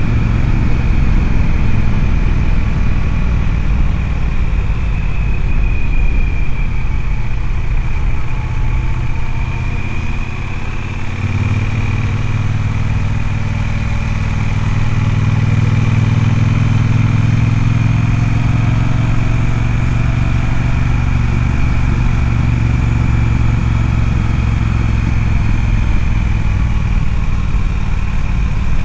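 Triumph Speedmaster motorcycle's parallel-twin engine running steadily as the bike is ridden. About eleven seconds in, its low hum grows stronger and steadier.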